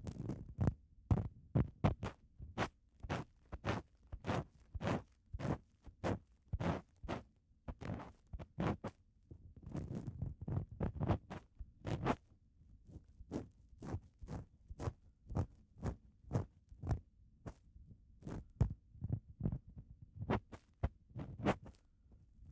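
Ear cleaning close to the ear: irregular scraping and rubbing strokes of an ear-cleaning tool, about two a second, each with a dull thump.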